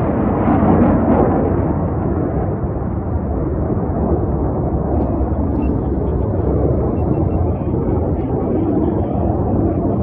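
Jet engine noise from Black Eagles KAI T-50B jet trainers flying their display, a loud, steady rumble, slightly louder in the first second.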